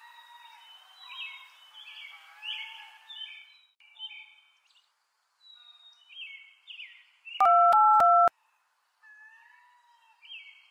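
Birds chirping and calling, then about seven seconds in a mobile phone gives a loud, short electronic ring of a few stepped notes lasting about a second, the loudest sound here. Faint birdsong comes back after it.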